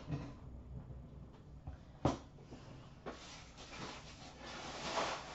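Hands handling trading card packs and boxes: a single sharp tap about two seconds in, then a soft rustling that builds toward the end.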